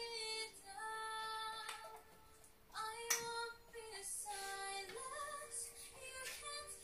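A high-pitched voice singing a melody in long held notes, with a brief click about three seconds in.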